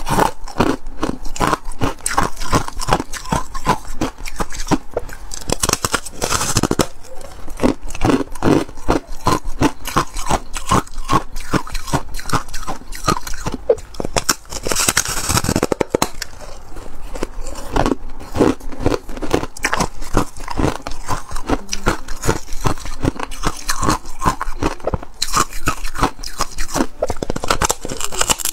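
Shaved (foam) ice in a thin ice shell being bitten and chewed: a dense run of crackly crunches, with a few louder bites about six seconds in, around the middle and near the end.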